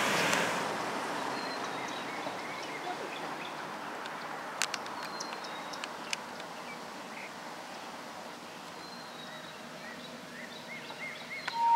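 Small birds chirping over a background hiss that fades during the first couple of seconds, with a few sharp clicks. Right at the end, the whistle of the Thomas the Tank Engine locomotive starts up as one steady loud tone.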